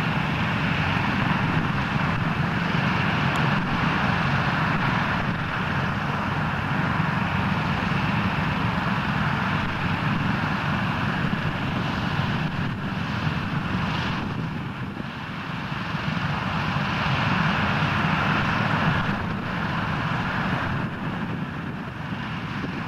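Douglas DC-6's four Pratt & Whitney R-2800 radial piston engines running with propellers turning, a steady deep drone that eases briefly about two-thirds through and swells again.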